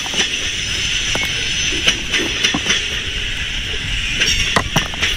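Loaded coal hopper cars of a freight train rolling past. Irregular clicks and knocks from the wheels sit over a steady high-pitched wheel noise.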